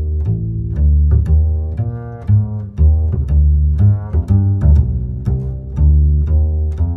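Background music led by low plucked and bowed strings, with a bass line of notes changing about twice a second.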